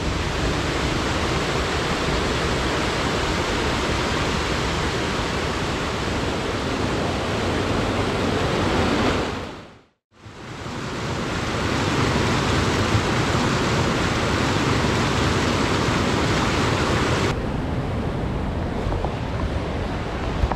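Steady outdoor rushing noise, even across the range. It fades out and back in about halfway through, and turns duller a few seconds before the end.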